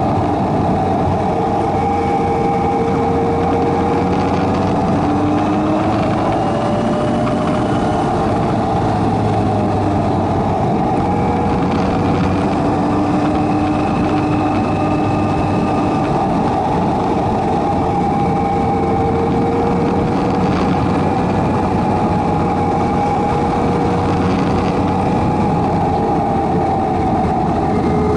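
Kawasaki Versys 1000's inline-four engine running at a steady cruise, its pitch drifting gently up and down with the throttle through the bends, over a steady rush of wind and road noise.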